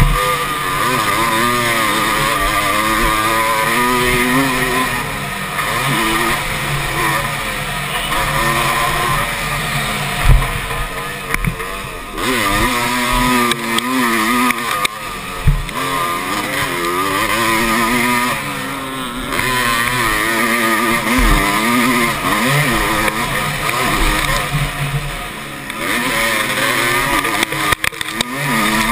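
Motocross bike engine heard up close from on board, revving up and down continuously with the throttle and gear changes. A couple of sharp thumps, about ten and fifteen seconds in.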